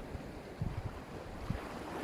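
Sea waves washing onto the shore in a soft lull, with a few low gusts of wind buffeting the microphone, first just after halfway and again near the end.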